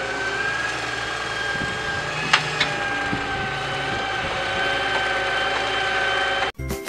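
Doosan DX140W wheeled excavator's diesel engine running steadily under a steady high whine while the boom and bucket dig, with two sharp clicks about two and a half seconds in. The sound cuts off suddenly shortly before the end.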